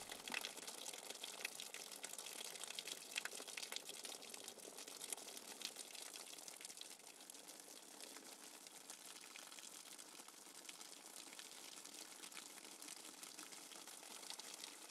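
Handheld shower head spraying water onto a bare foot and a tiled floor over a metal floor drain. It makes a faint, steady hiss of running water with small splashes as the foot is scrubbed.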